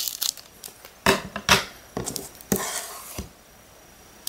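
Scissors cutting open a shiny foil Pokémon booster pack: two sharp snips about a second in, another shortly after, then a longer crinkling cut through the wrapper.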